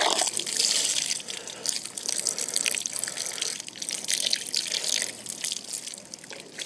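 Water poured over a whole raw chicken, splashing and dripping onto the ground as it is rinsed and rubbed clean by hand. The splashing dies down near the end.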